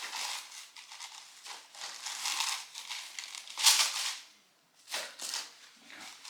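Rustling and crinkling on a chiropractic treatment table as the patient shifts position, in uneven swells, loudest about three and a half seconds in.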